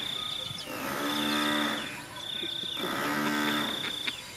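Low, drawn-out animal calls, each about a second long and repeated about every two seconds, over insects trilling in short steady bursts.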